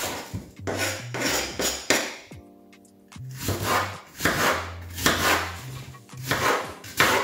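Serrated knife cutting apple on a wooden cutting board: a quick run of sawing strokes and taps, with a pause of about a second near the middle. Background music with a steady bass line plays underneath.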